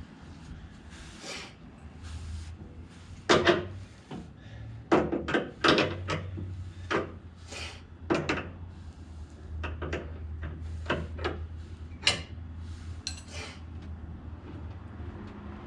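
Spanner and hand tools clinking, knocking and scraping on metal while nuts are loosened on a car's wiper mechanism: irregular sharp clanks over a low steady hum.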